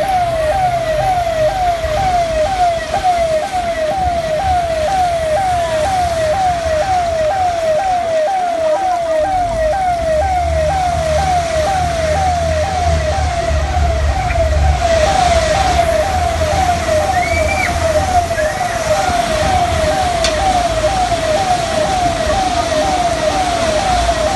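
Electronic siren cycling rapidly and evenly, about two sweeps a second, without a break, over a steady background of noise and low rumble.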